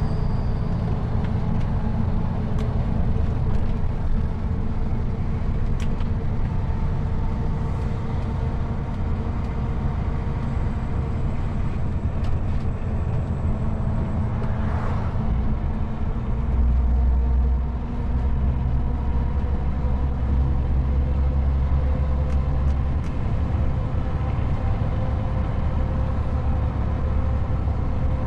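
Cab interior of a moving MAN TGX 440 truck: the steady drone of its six-cylinder diesel engine mixed with road noise. About halfway through, an oncoming car passes with a brief whoosh, and a deeper rumble follows for several seconds.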